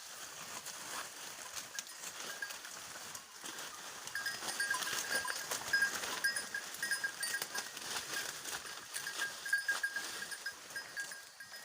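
Goats browsing on cut tree foliage, with leaves rustling and crackling. From about four seconds in, a small bell on one of the goats clinks repeatedly as it feeds.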